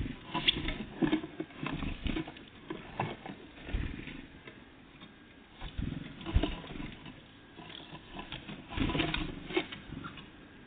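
Tits feeding at a bird feeder: irregular taps, knocks and scrabbling of beaks and feet on the feeder, with no song.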